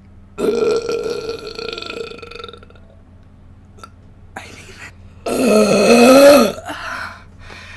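Two long, loud human belches. The first comes about half a second in and lasts around two seconds. The second, the loudest, comes about five seconds in and wavers in pitch. A short faint sound falls between them.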